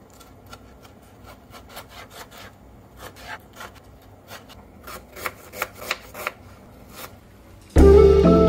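Kitchen knife chopping a tomato on a plastic cutting board: a steady run of light taps, about three a second, as the blade strikes the board, getting louder from about five seconds in. Loud music cuts in suddenly just before the end.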